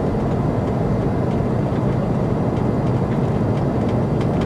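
Steady rushing noise on the Airbus A340 flight deck in descent: airflow and engine noise, strongest in the low range.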